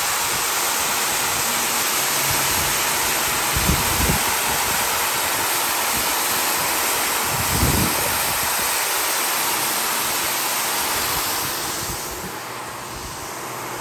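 Rotary floor machine scrubbing a wet rug with its shampoo brush: a steady whirring rush with a few soft thumps, getting quieter near the end.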